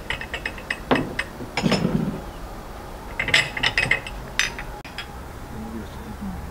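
Clinking of pear-shaped glass tea glasses, saucers and spoons being handled at the table, in several quick runs of small clinks and ticks.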